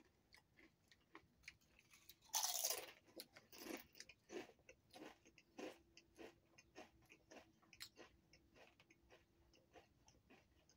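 Crunchy Doritos tortilla chips being bitten and chewed: a loud crunch a little over two seconds in, then a run of small, quick crunches.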